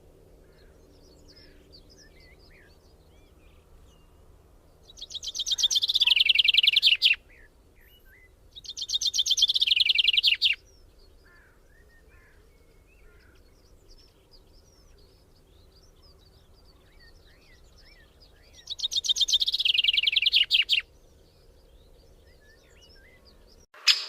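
A songbird singing three loud songs, each a fast trill about two seconds long that swells and falls in pitch, over faint scattered chirps of other birds.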